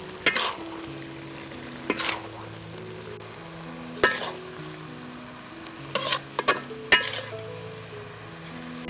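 A metal spatula scraping and clinking against a wok as stir-fried minced pork and soybeans are scooped onto a plate: about six sharp scrapes, with a quick cluster near the end. Soft background music with held notes plays throughout.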